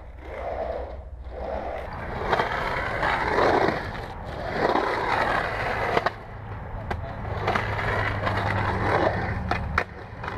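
Skateboard wheels rolling over rough concrete, with a few sharp clacks of the board and trucks hitting the ground.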